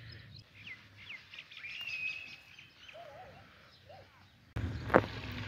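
Birds calling: short sliding whistles, one held note about two seconds in, and a few lower sliding calls after it. Near the end a louder steady hiss starts suddenly, with a single sharp knock.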